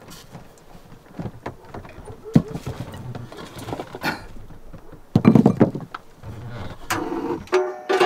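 Scattered knocks and clinks of dishes and food being handled on a table, with a louder thump about five seconds in.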